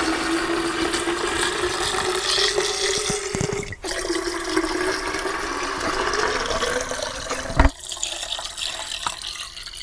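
Water poured from a bucket into a plastic drum, splashing steadily, with a low tone in the splash that rises slowly in pitch as the drum fills. There is a brief break about four seconds in, and a single knock near the end, after which the flow is quieter.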